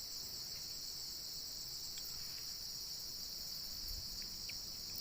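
Steady, high-pitched insect chorus, crickets trilling without a break.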